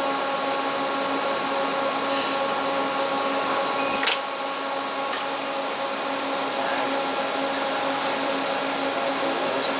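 Panasonic CM85C-M SMT chip mounter running: a steady hum of several fixed tones over an even hiss. A sharp click comes about four seconds in, a fainter one a second later, and the machine is a little quieter after the first click.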